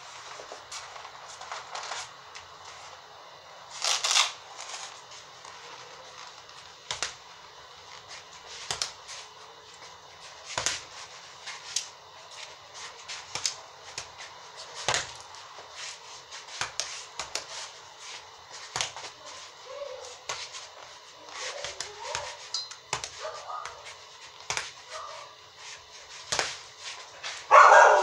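Boxing gloves punching a small ball hung on a string. An irregular run of sharp hits, roughly one or two a second, with a louder burst near the end.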